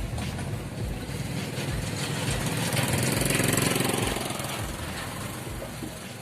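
Bajaj RE auto-rickshaw's single-cylinder engine running, revved up for a couple of seconds about two seconds in, then easing back down.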